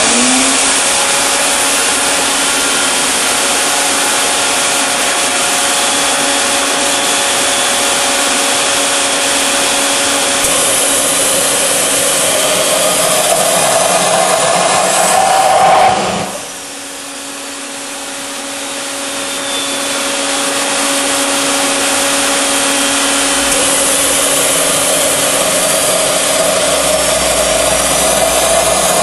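Home-made gas turbine engine with a free power turbine running loud and steady, a jet rush with a thin whine that rises slowly in pitch. About halfway through the sound drops suddenly, then builds back up over several seconds as the whine climbs again.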